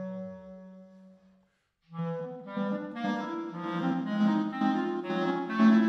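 Clarinet played through live electronics: a held low note dies away, a brief silence follows, and about two seconds in the clarinet comes in with quick runs of notes that overlap over a sustained low layer.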